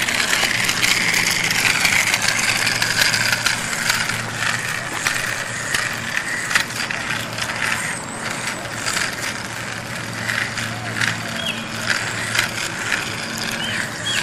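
A small single-motor two-wheeled toy robot's motor and gears whirring as its wheels roll over asphalt, with a steady run of rattling clicks.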